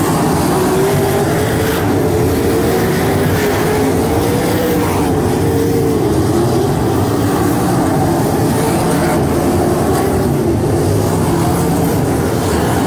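A field of 305 winged sprint cars racing on a dirt oval, their V8 engines running loud and continuous, with the engine pitch wavering up and down as the cars pass.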